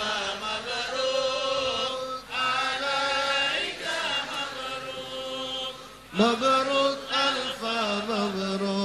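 A song track with a voice singing long, held, chant-like notes in a melodic line, with short breaks between phrases.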